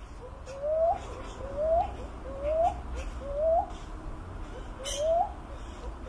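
Philippine cuckoo-dove (Macropygia tenuirostris) calling: a series of five rising coos, each a short soft note followed by an upswept whoop, repeated about once a second with one longer pause. A single sharp click comes about five seconds in.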